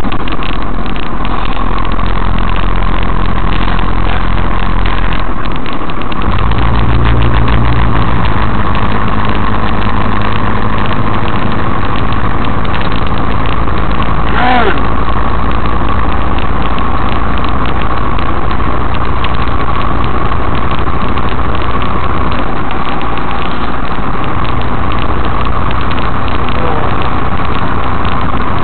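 Truck engine and road noise heard inside the cab while driving on the highway: a loud steady drone whose low engine note shifts about six seconds in and again near the end.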